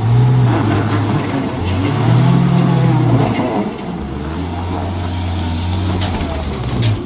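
Car engine revving up and dropping back twice, then held at a steady speed, with a broad rushing noise alongside.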